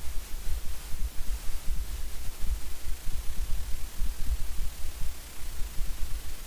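Wind buffeting the microphone: an irregular low rumble that comes and goes many times a second, over a steady hiss.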